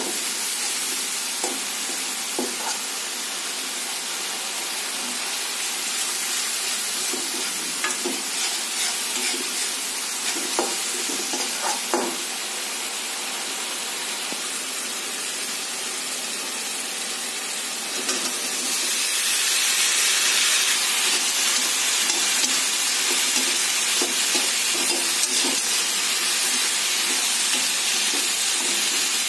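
Tomato masala sizzling in oil in a steel kadhai, with a metal slotted spoon scraping and clicking against the pan. About 18 seconds in the sizzle turns louder and hissier as cubed potatoes and cauliflower florets go into the hot oil, and stirring goes on.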